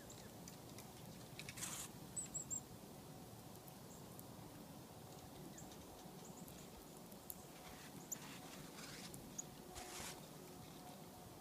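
Small winter songbirds calling faintly: three quick high chirps about two seconds in and a single high note near eight seconds, over scattered soft taps and rustles.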